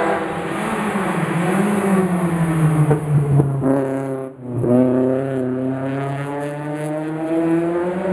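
Race car engine at a hill climb, its pitch falling as the car slows into a hairpin, with a few sharp cracks about three seconds in. Past the middle the sound drops out for an instant, then the engine pulls away with a steadily rising pitch.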